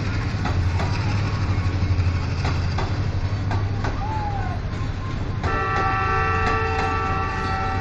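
Pakistan Railways passenger coaches rolling past, wheels clicking over rail joints, over a steady low engine hum. About five and a half seconds in, a train horn starts a held blast of several tones together.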